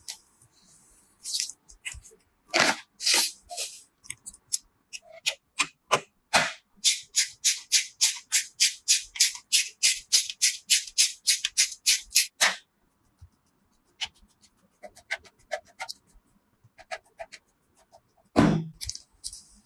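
Sharp plastic and metal clicks and snaps of computer parts being handled and fitted together. In the middle comes a fast, even run of about four clicks a second lasting several seconds, then only scattered small clicks.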